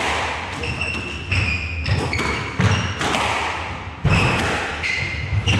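Squash rally: the ball smacking off rackets and walls four times, about every second and a half, with sneakers squeaking on the wooden court floor between shots.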